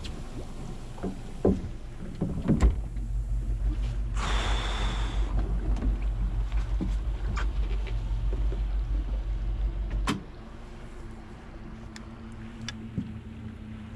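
Suzuki 115 outboard motor running under way, then dropping to a quieter idle with a click about ten seconds in as the boat comes off the throttle. A brief hiss about four seconds in.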